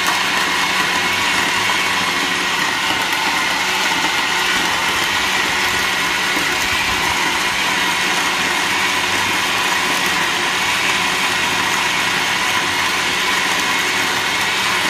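Countertop blender motor running steadily at full speed, blending a thick green smoothie of frozen mango, spinach, oats and almond milk, with a constant high whine over the churning.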